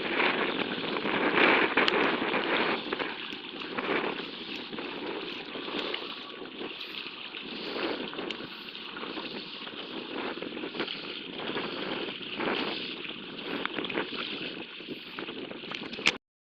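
Wind buffeting the microphone over water splashing and sloshing against a kayak's hull as it moves through choppy water. The sound cuts off suddenly near the end.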